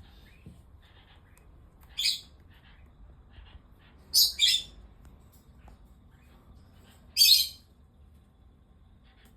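Cockatiel calling: four short, loud, high-pitched calls, one about two seconds in, a quick pair around four seconds, and a slightly longer one near seven seconds.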